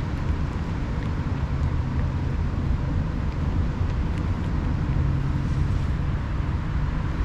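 Steady low outdoor rumble, with a few faint crunches of cats chewing dry kibble.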